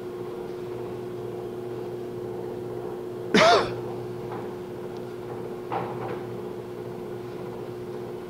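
Colchester Mastiff 1400 engine lathe running with a steady hum. A person coughs once, loudly, about three seconds in.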